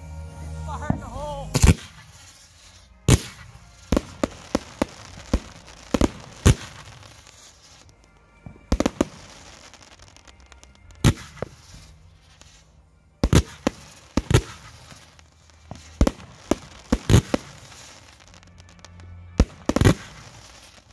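Fireworks going off at close range: a string of sharp bangs at irregular intervals, several coming in quick clusters.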